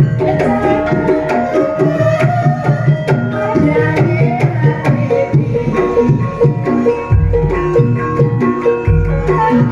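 Javanese gamelan ensemble playing a gending: interlocking bronze metallophone and kettle-gong notes over kendang hand-drum strokes. Deep low strokes sound twice, about seven and nine seconds in.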